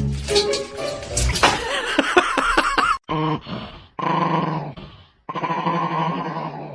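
A dog vocalizing with drawn-out growling grumbles and whines, in several separate stretches broken by short silences.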